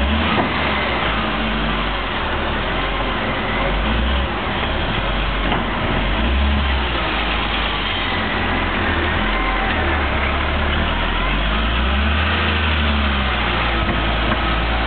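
Volvo L70F wheel loader's six-cylinder diesel engine working the bucket and driving, its revs swelling and easing several times as it dumps snow, backs off and turns.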